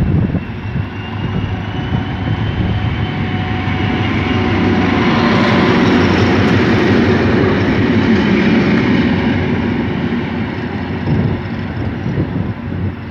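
Two diesel locomotives running light past at close range: an SM42 shunter and a BR232 'Ludmila' with its V16 diesel engine. Their engine sound builds as they approach, is loudest about six to eight seconds in as they pass, then fades as they move away.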